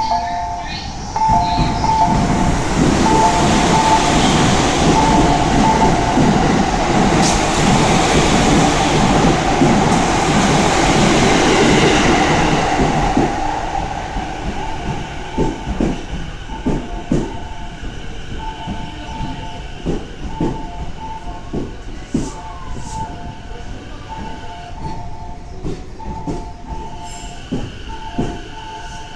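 A platform approach chime repeats a two-note electronic ding pattern, warning of a train arriving at a track without platform doors. A Keihin-Tohoku Line E233-series electric train pulls in, its running noise loud for the first dozen seconds and fading as it stops. After that the chime keeps repeating over scattered clicks and a steady high hum from the standing train.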